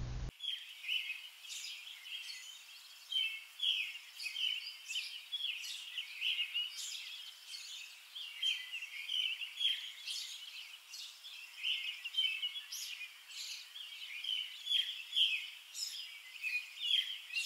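Birds chirping: many short, high calls at an irregular pace.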